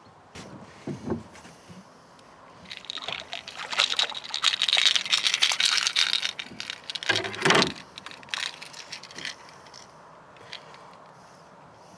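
A hooked pike thrashing and splashing as it is lifted out of the water into a rowboat, spraying water in a dense crackle that lasts about five seconds. It ends with a loud thump, and there are a few softer knocks about a second in.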